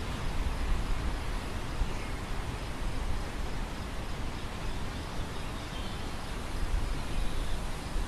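Wind over a field of grain: a steady hiss with a low rumble of wind buffeting the microphone, swelling in gusts about a second in and again near the end.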